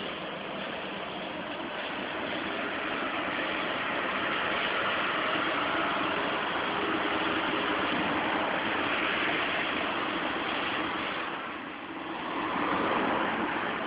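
Lamborghini Gallardo Superleggera's V10 engine running as the car pulls out and drives slowly past. The sound swells over several seconds, eases off briefly near the end, then rises again.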